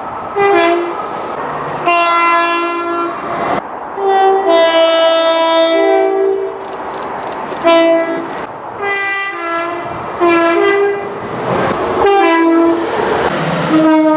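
A rapid series of train horn blasts, about eight short soundings in a row. Some step between a higher and a lower note, two-tone style, over the rumbling noise of moving trains.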